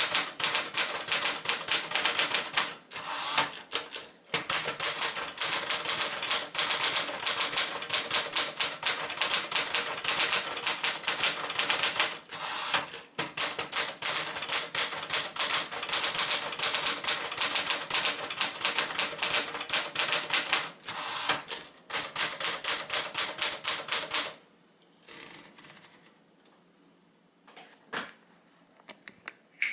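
Smith-Corona-built Sears Citation manual typewriter being typed on fast: a dense run of sharp keystroke clacks with a few short pauses, stopping about 24 seconds in, after which only a few faint clicks remain.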